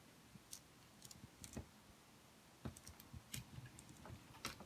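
Faint, irregular clicks and taps of a plastic Fisher-Price Loving Family toy van being handled as its rear trunk door is opened.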